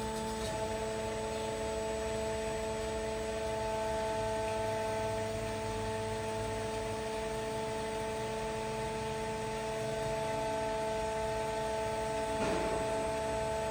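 Behringer HBP 530 metal-cutting band saw running with a steady hum made of several steady tones. A lower hum drops out just after the start.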